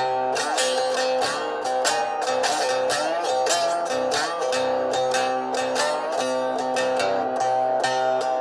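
Saturn three-string cigar box guitar played instrumentally: a quickly picked melody over steadily ringing drone notes, with several notes gliding up or down in pitch.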